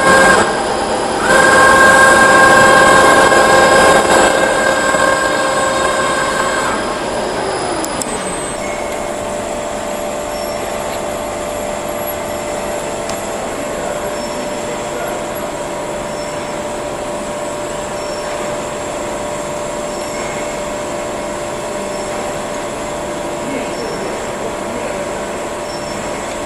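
16K30F335 CNC screw-cutting lathe running: a loud, high whine made of several steady tones. About seven seconds in it eases to a steadier, quieter whine.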